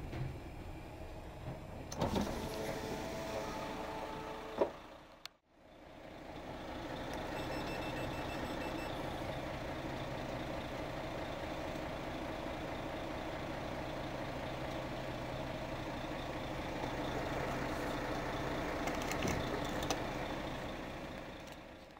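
Truck's diesel engine running steadily at idle, with a brief squeal about two seconds in, a short break near five seconds, and a couple of light clicks near the end.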